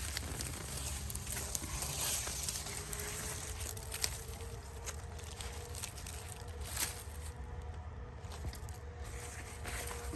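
Dry garlic stalks and leaves rustling and crackling, with soil crumbling, as hardneck garlic bulbs are pulled and handled; scattered short crackles over a steady low rumble.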